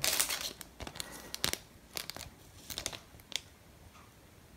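Foil Yu-Gi-Oh booster pack wrapper crinkling as it is handled: a dense burst of crackling at first, then a string of sharp separate crackles over the next three seconds.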